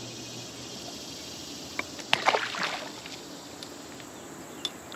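Steady outdoor background hiss on the water of a canoe, with a short cluster of knocks and small splashes about two seconds in.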